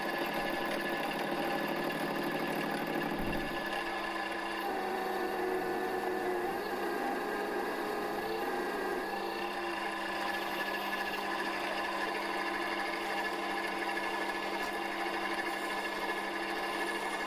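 Milling machine running steadily, its spindle turning a stack of silver steel cutter blanks against a fixed tool that cuts them to diameter. A steady machine whine made of several held tones, a little busier for a few seconds in the middle.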